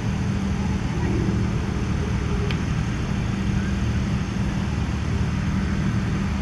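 Steady low rumble with a hiss over it, unchanging throughout.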